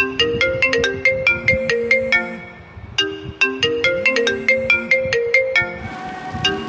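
Mobile phone ringtone: a short melody of quick, bright notes, the phrase repeating about every three seconds with a brief pause between repeats.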